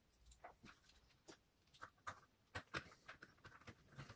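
Near silence with faint, scattered clicks and ticks of hands handling the bread machine's plastic housing, wiring and screwdriver during reassembly.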